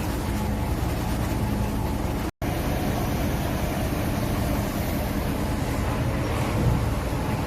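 Heavy machinery's diesel engine running steadily, a continuous low rumble with a faint hum, cut by a brief gap of silence about two and a half seconds in.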